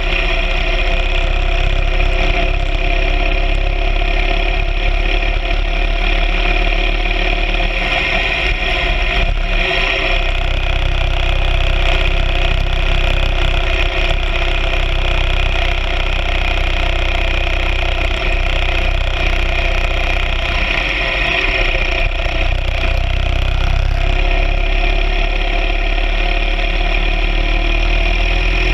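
BMW R 1200 GS Adventure sidecar rig's flat-twin engine running steadily under way. Its low rumble shifts a little about a third of the way in and again near the end.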